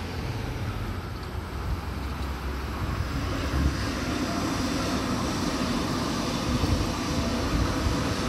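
Sydney Trains Waratah double-deck electric train running past close by as it arrives at the station: a steady rumble of wheels on rail, with a low electric motor hum that comes in about three seconds in and grows a little louder as the carriages go by.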